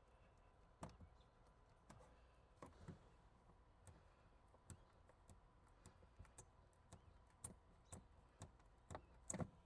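Faint, irregular small clicks and light taps of hand work removing old double-sided tape residue from the glass, with a slightly louder pair of clicks near the end.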